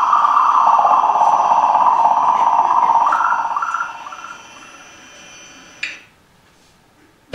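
A sustained drone from the stage's playback sound system holds steady, then fades out about four seconds in. A single click comes near the end, followed by a brief, almost silent gap.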